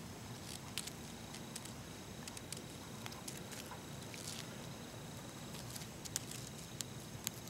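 Faint, scattered crunches and clicks of twigs being pushed into packed snow on a small snowman, over a low steady hiss.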